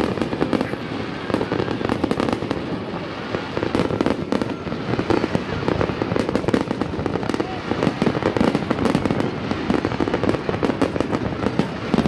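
Aerial fireworks display: a dense, continuous barrage of shells bursting, rapid bangs and crackling with no let-up.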